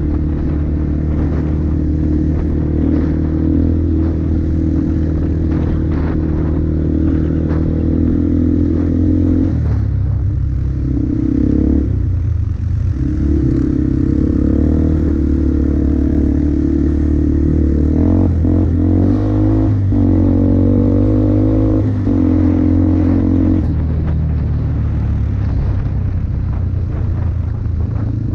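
2004 Yamaha Bear Tracker ATV's single-cylinder four-stroke engine, fitted with an FMF exhaust, running under way on a trail. Its engine note shifts as the throttle changes, about ten seconds in and again a few seconds before the end, with a few knocks from the machine in between.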